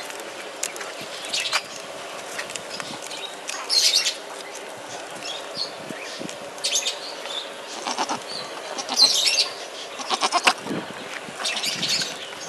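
Goats bleating, a string of short separate calls spread across the few seconds.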